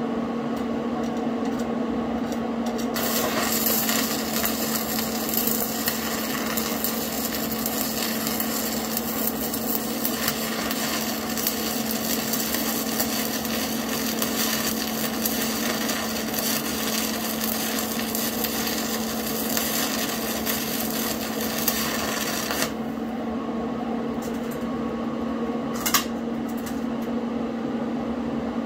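Stick (arc) welding: the electrode's arc crackles steadily for about twenty seconds, starting a few seconds in, then stops, with one short burst of crackle near the end. A steady electrical hum runs underneath throughout.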